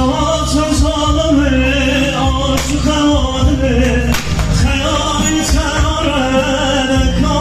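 Music with a man singing long, wavering held notes over steady low accompaniment.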